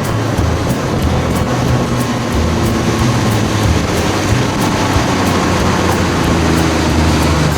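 Outboard motor running steadily with the boat under way, its low drone over a wash of water and wind noise.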